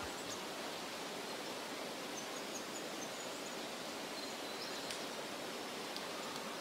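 Steady outdoor ambience: an even, soft hiss with a few faint high chirps.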